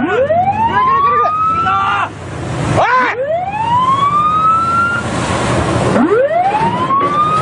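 Patrol ship's siren sounding repeated rising wails, three of them about three seconds apart, each climbing in pitch for about two seconds before cutting off, over the steady rush of engines and breaking sea.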